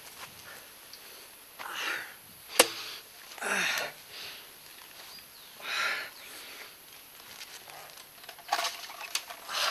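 A man's heavy, pained breaths and gasps, one every second or two, one of them dropping into a low groan. A single sharp knock about two and a half seconds in is the loudest sound, and a quick run of short knocks and breaths comes near the end.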